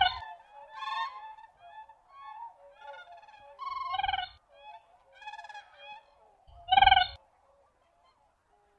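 Siberian crane calling: loud, high-pitched honking calls at the start, about four seconds in and about seven seconds in, with fainter calls between them.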